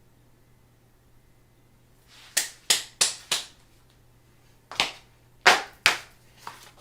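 Seven short, sharp snaps over a low steady hum: four in quick succession about two and a half seconds in, then three more spaced out near the end.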